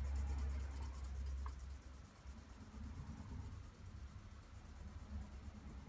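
Pencil shading on drawing paper: a soft, continuous scratching of quick back-and-forth strokes, with a low rumble that eases after about two seconds.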